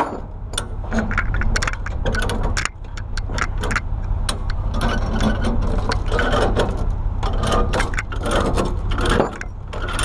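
Steel tie-down chain clinking and rattling as it is handled and worked loose from the backhoe, in many quick irregular clinks, over a steady low rumble.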